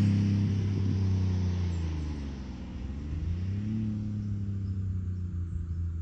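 Honda Acty mini truck with a Wirus Win aftermarket exhaust driving away just after passing by, its exhaust note fading. About two seconds in, the engine pitch dips, then climbs again, settling into a steady, more distant drone.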